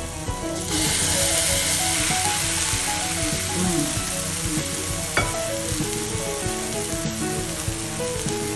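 Plantain pancake batter sizzling in hot oil in a ridged grill pan. The sizzle jumps louder about a second in, as a second spoonful of batter goes into the pan, and there is a single sharp clink about five seconds in.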